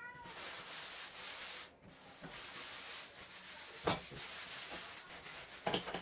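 Scrub sponge rubbing cleaning paste over a stainless-steel gas hob: a steady scouring rub that breaks off briefly a little before two seconds in. Two sharp knocks, one near four seconds and one near the end, stand out as the loudest sounds.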